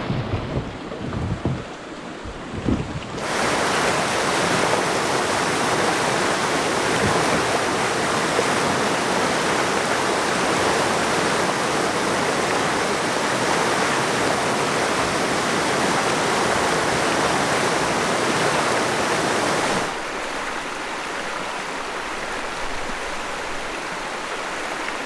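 Steady rush of river water running through rapids, starting abruptly about three seconds in and stepping down to a softer rush about twenty seconds in. A few dull low knocks come before it.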